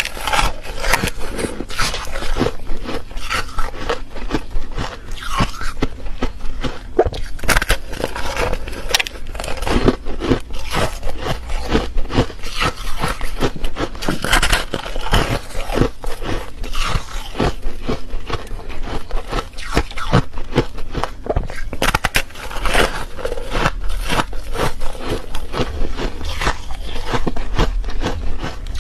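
Close-miked biting and chewing of refrozen foam ice: a dense, rapid run of crunches and crackles.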